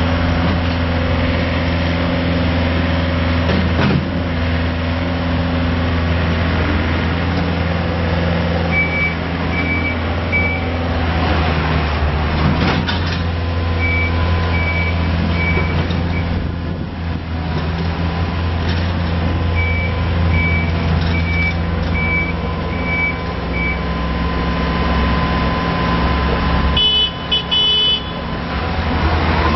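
2012 IHI CL35 compact track loader running steadily, its engine a constant low hum. Its backup alarm beeps in three spells as it reverses, and a short stuttering high tone sounds near the end.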